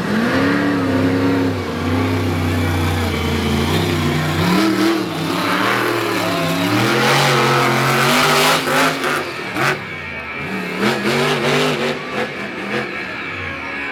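Monster truck's supercharged V8 engine revving hard, the pitch repeatedly climbing and dropping as the throttle is worked during a freestyle run.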